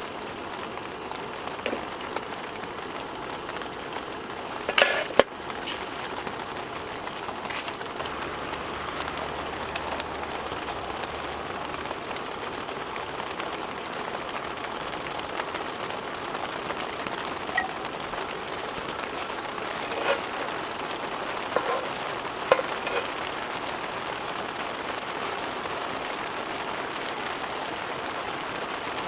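Steady patter of rain, with a few sharp clicks and taps over it; the loudest pair comes about five seconds in.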